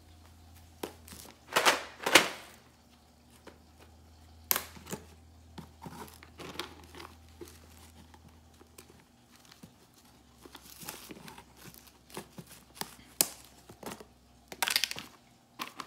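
Plastic tub of Temptations cat treats being handled and opened: irregular rustling, crinkling and clicks from the lid and its contents. The loudest two short bursts come about two seconds in, and another cluster comes near the end as the lid is worked open.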